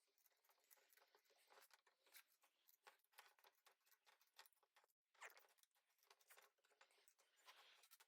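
Near silence, with a few very faint ticks.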